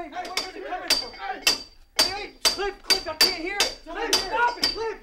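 Hammer-like knocks on metal, about a dozen sharp ringing strikes in an uneven pattern of short and longer gaps: a Morse code signal tapped on a ship's steel bulkhead by trapped sailors calling for help.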